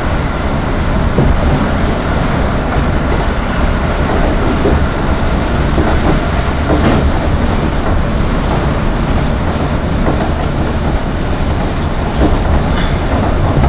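A moving train's running noise heard from inside the carriage: a steady, loud rumble of wheels on the track, with a few faint clicks.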